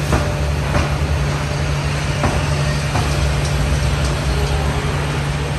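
Passenger train SE16's sleeper coaches rolling slowly past with a steady low hum and rumble, broken by a few sharp clacks.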